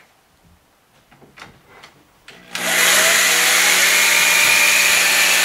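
Electric drill driving a screw into the wooden support of the screen rack, running at a steady speed for about three seconds from about two and a half seconds in, after a few faint handling ticks.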